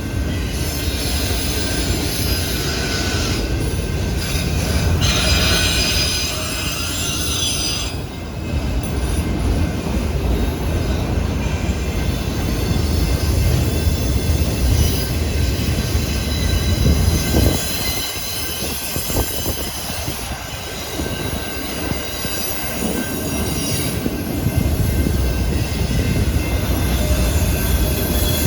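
Train rolling past, its wheels squealing against the rails in high-pitched tones over a steady rumble; the squeal is strongest about five to eight seconds in.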